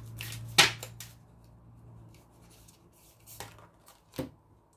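Oracle cards handled and shuffled by hand on a tabletop: a few sharp card taps and clicks, the loudest about half a second in, over a low hum that fades away in the first couple of seconds.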